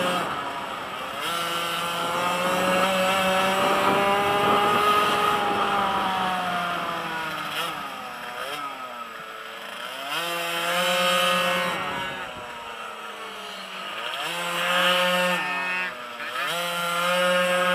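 Blata pocket bike's small two-stroke engine revving high and dropping back over and over as it is ridden hard through corners, with deep drops in revs about nine, thirteen and sixteen seconds in.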